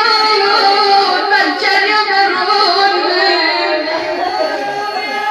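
A woman chanting a mournful Shia Arabic lament (na'i), sung unaccompanied in long held notes that waver in pitch.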